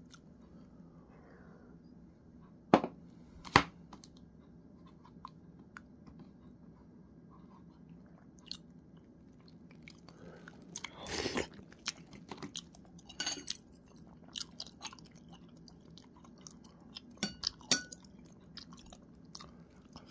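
A person eating close to the microphone: chewing and crunching food, with kimchi and soup on the table. Two sharp clicks come about three seconds in, a longer, louder crunching burst around the middle, and a few more short clicks near the end.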